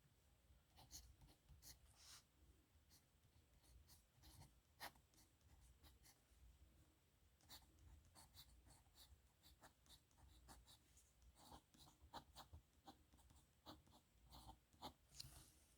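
Faint scratching of a metal nib pen writing on paper, in many short, irregular strokes with brief pauses between them.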